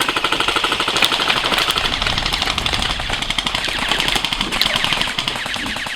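Airsoft gun firing full-auto in a long, unbroken burst, a rapid, steady stream of shots.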